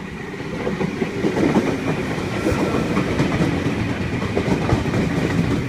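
V-set double-deck intercity electric train rolling into a station platform. The rumble and clatter of its wheels on the track grows louder over the first second or two as it approaches, then holds steady, with a faint steady high whine above it.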